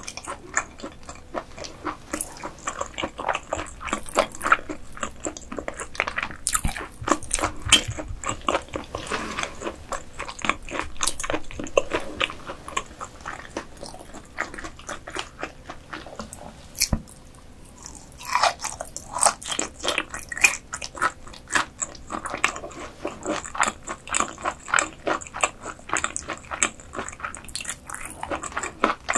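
Close-miked eating sounds: a person chewing croaker, with a fast run of wet, clicky chews and bites and a quieter pause about halfway through.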